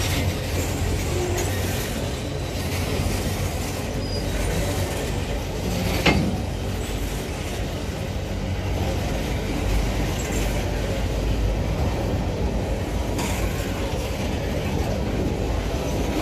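Empty steel ore wagons of a freight train rolling past at close range: a steady rumble and rattle of wheels on rail, with a sharp clank about six seconds in.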